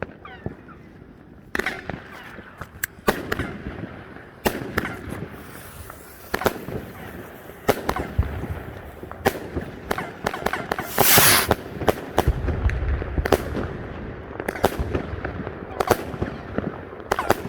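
Fireworks going off: many sharp bangs and cracks at irregular intervals, with a louder rushing burst about eleven seconds in followed by a low rumble.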